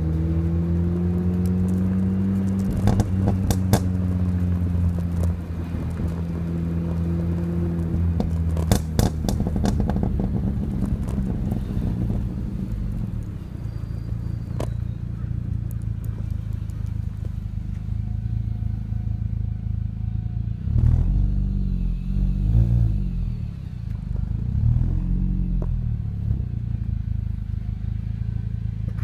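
R53 Mini Cooper S's supercharged 1.6-litre four-cylinder running through a one-ball exhaust at low speed in second gear, heard from outside the rear window. The revs climb in the first couple of seconds and then settle into a steady low drone, with a few sharp clicks around three and nine seconds in. In the second half the revs rise and fall a few times.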